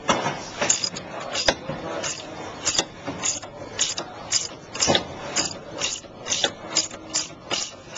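A 14mm wrench being worked back and forth to unscrew the top nut of a sway bar link, the stud held with a 5mm Allen key: a run of irregular ratcheting metal clicks, about two a second.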